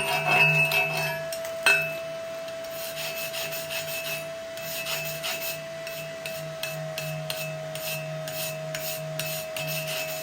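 Stick welding (SMAW) arc crackling and sizzling irregularly as a bead is laid, with a sharp snap about two seconds in, over a steady hum.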